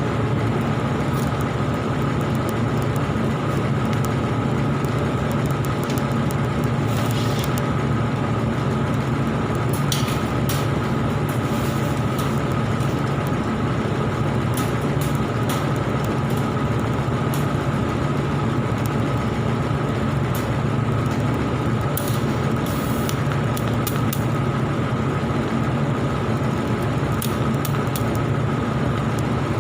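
Argon-shielded (TIG) welding: a steady electric buzz and hum with a hiss, broken by a few brief crackles.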